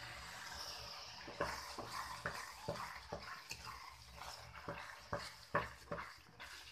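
Wooden spatula stirring thick carrot-and-sugar paste in a steel kadhai, scraping and knocking against the pan in irregular strokes that start about a second and a half in, over a faint steady hiss. The paste is being stirred while it cooks down until its water dries off.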